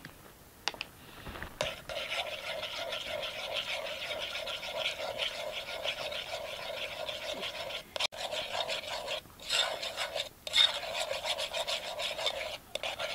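A spoon stirring quickly in an aluminium pot, scraping the bottom and sides in a fast, even rasping rhythm with a few brief pauses. Maize flour is being worked into the water for porridge. The scraping starts about one and a half seconds in, after a couple of light clinks.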